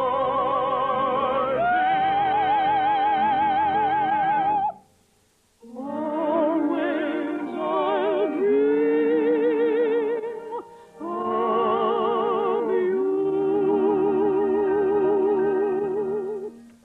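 Operatic singing with a wide, even vibrato on long held notes, from an early-1950s radio broadcast with a dull, narrow sound. The singing breaks off briefly twice, about five and about ten seconds in.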